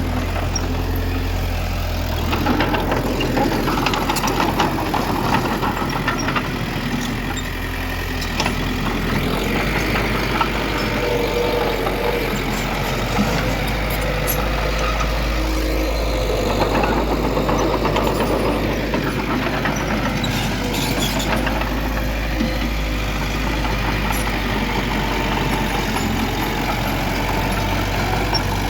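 Diesel engine of heavy earthmoving machinery running steadily under varying load, as a bulldozer and dump truck work soil, with a few faint clicks and clanks.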